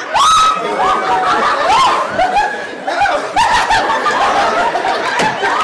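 Audience laughing, with many short high-pitched laughs rising and falling over one another.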